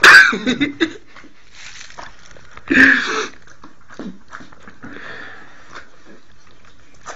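A dog's breathing noises: two loud bursts, one right at the start and another about three seconds in, with quieter snuffles between.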